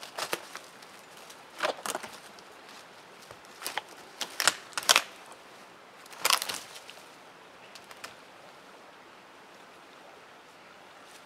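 Dry twigs and sticks crackling and snapping as they are handled among dry leaf litter, in about six short sharp bursts during the first seven seconds.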